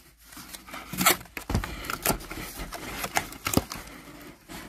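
Cardboard boxes being handled: flaps scraping and rustling, with a few sharp knocks as small boxes of AAA batteries are lifted out of a larger carton.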